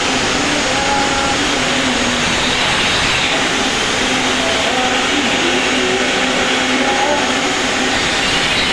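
Electric arc welding: a steady, unbroken hiss that holds an even level throughout, with faint wavering tones underneath.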